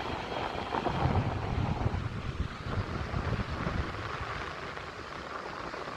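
Wind buffeting the phone's microphone in gusty low rumbles, strongest in the first half and easing after, over the steady hiss of surf.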